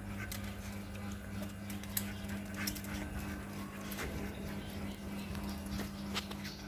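Scattered light taps of footsteps and a puppy's paws on steps, over a steady low hum.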